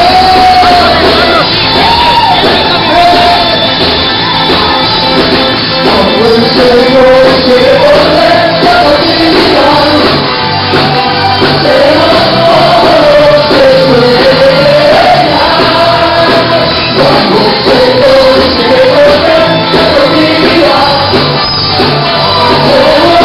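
Loud band music with a voice singing a gliding melody over a steady, repeating bass line.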